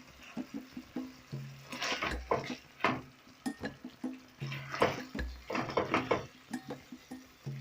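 Background music with a deep bass note repeating about every three seconds, over clinks of a spoon against a pot and the wet sloshing of thick coconut sauce being spooned.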